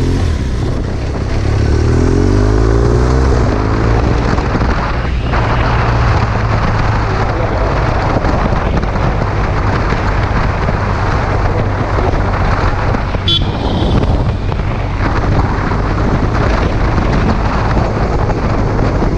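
BMW R1200R LC's liquid-cooled boxer twin running under way. The engine note rises as the bike accelerates about a second in, then settles to a steady cruise with wind and road noise.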